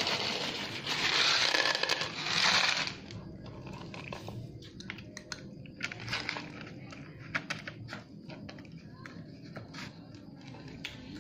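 A loud rustle for about three seconds, then a cat eating from a plastic bowl, with small scattered clicks of its chewing and lapping.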